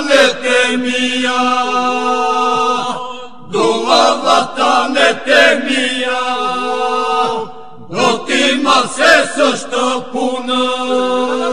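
Lab Albanian iso-polyphonic folk singing by a vocal group: a steady held drone (the iso) under ornamented lead voice lines. The singing comes in three phrases, breaking briefly twice.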